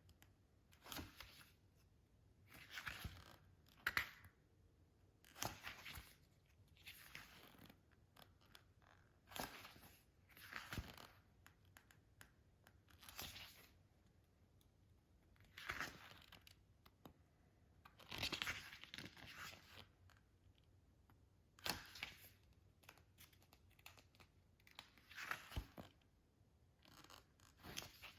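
Disc packaging being unwrapped and handled: short bursts of tearing and rustling every second or two, with a few sharp clicks.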